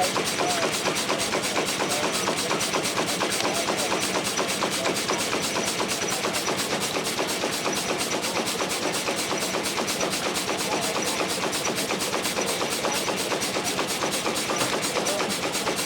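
Antique sawmill machinery running steadily with a fast, even pulsing beat.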